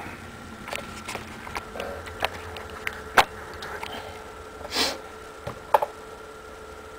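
Small handling noises as a broken pepper shaker is repaired with electrical tape: scattered light clicks and taps, one sharp click about three seconds in, and a brief rasp near five seconds. A faint steady hum runs underneath.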